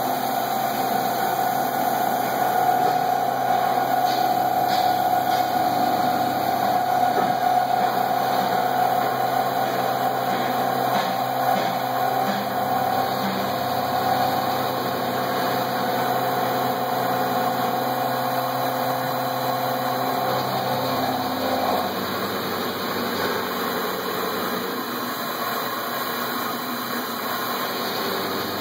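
Fanuc-controlled CNC lathe running a cut under flood coolant: a steady machine whine with a hiss of coolant spray. The whine and its lower hum fade out about three-quarters of the way through, leaving the hiss and the machine noise.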